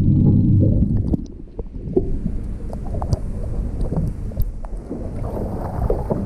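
Low underwater rumble for about the first second, then water lapping and splashing at a boat's side as a yellowtail kingfish is held at the surface and lifted out by hand, with scattered short clicks and splashes.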